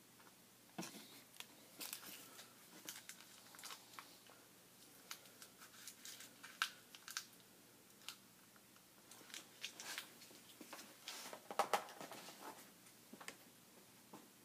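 Liquid bubbling in a glass vessel: irregular soft pops and crackles, with a few sharper clicks.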